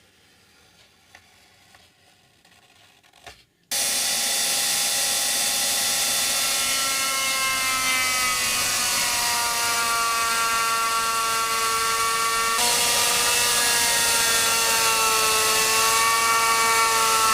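Electric power tool starting suddenly about four seconds in and running steadily, its motor whine slowly sagging in pitch as it works under load. Before it, only faint clicks of handling.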